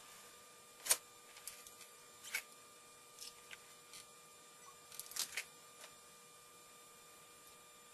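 Scattered light clicks and taps of a Nerf DT3 pistol's parts being handled, the loudest about a second in and a quick cluster around five seconds, then only a steady hiss with a faint hum.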